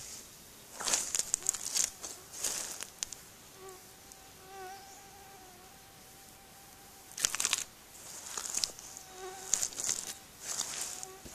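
Leather work boots squelching and sucking in thick wet mud, several wet steps in two clusters with a quieter stretch of about four seconds between. A wavering insect buzz runs through the quiet stretch.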